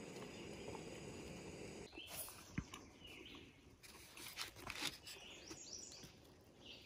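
Faint outdoor ambience with short bird chirps, and a few soft clicks and crunches from a small knife slicing onion and cucumber on a paper plate.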